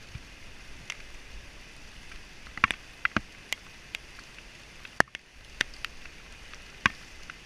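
Rain falling steadily as a soft hiss, with irregular sharp taps of drops striking gear close to the microphone, several in quick succession about a third of the way in and more after the middle.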